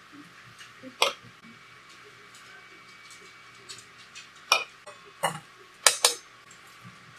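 Stainless-steel mixing bowl, utensil and mesh strainer of boiled potatoes knocking against each other and the stainless-steel countertop: five sharp metallic clanks, one about a second in and the rest bunched in the second half.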